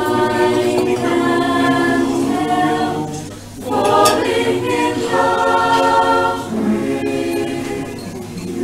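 A small choir singing a cappella: sustained chords from several voices, with a short break between phrases about three and a half seconds in.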